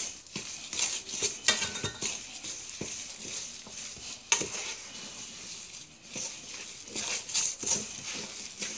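Wooden spoon stirring sticky, shaggy whole wheat bread dough in a stainless steel mixing bowl: irregular scrapes and knocks of the spoon against the metal bowl, with a sharper knock about four seconds in.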